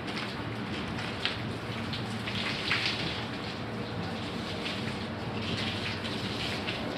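Water running and splashing on a hard surface, as when washing sandstorm dust off floors, with irregular louder splashes over a steady rush.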